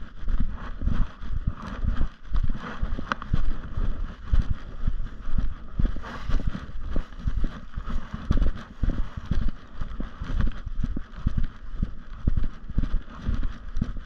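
Walking footsteps on a forest trail, heavy thuds about two a second with the handheld camera jostling at each step, over a steady high hiss.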